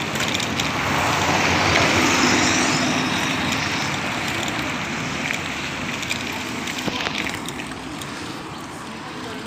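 Street traffic noise with a motor vehicle passing close by: a rushing sound that swells to its loudest about two seconds in and then slowly fades.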